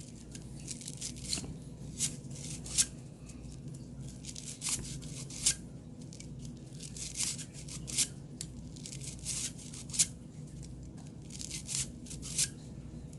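Bore brush on a cleaning rod scrubbed back and forth through a Glock 23 barrel, giving short, irregular scraping strokes, a few every couple of seconds.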